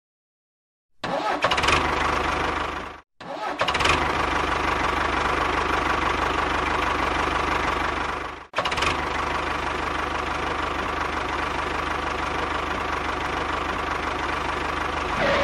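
A mini tractor's engine running steadily, heard in three stretches separated by abrupt silent cuts.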